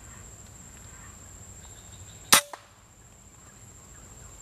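A single air rifle shot: one sharp, loud crack a little over two seconds in, with a brief ring after it.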